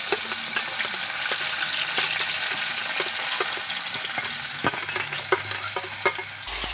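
Pressure-cooked duck pieces sizzling steadily in hot coconut oil, with scattered sharp pops and crackles as the wet meat fries.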